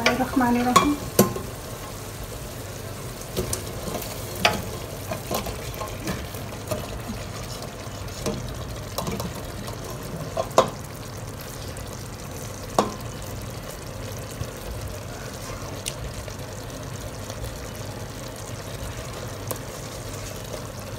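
A silicone spatula scraping and knocking against a steel pan as cooked chicken is scraped out into a pressure cooker of gravy: scattered sharp clicks and taps over a steady low hiss.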